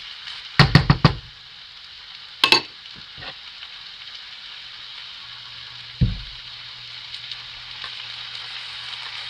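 Rice with chicken and vegetables sizzling steadily in a hot frying pan while being stir-fried. A cooking utensil knocks and scrapes against the pan: a quick cluster of knocks about half a second in, then single knocks a few times after.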